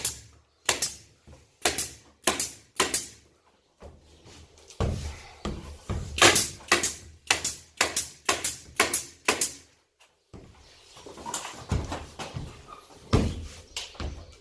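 Pneumatic staple gun (tacker) shooting staples through plywood into a ceiling: sharp shots about twice a second, in runs with short pauses between them.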